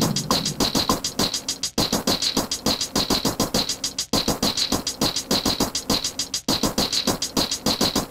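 Electronic beat played live on a Native Instruments Maschine pad controller: a fast, even run of percussive hits with a bright, hissy top and little bass. It cuts out briefly about every two and a half seconds.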